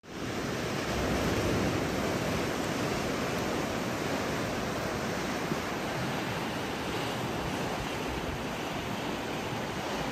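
Steady rush of sea surf breaking on rocks.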